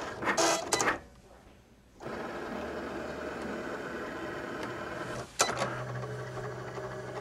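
Cricut Explore Air 2 cutting machine running as it cuts vinyl, its motors whirring. It stops briefly about a second in, starts again a second later, and a click comes near the end before it carries on with a steady hum.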